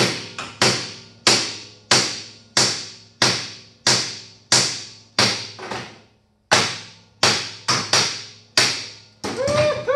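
A hammer swung two-handed strikes hard steel again and again, about one and a half blows a second, each with a short metallic ring, and pauses briefly about six seconds in. The blows land on the boss around a tapered shaft on the buggy's front suspension, to deform and shock it so that the seized taper drops out.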